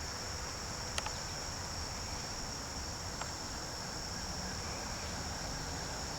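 Insect chorus: a steady, high-pitched trill that does not change, over a low background rumble, with a sharp click about a second in.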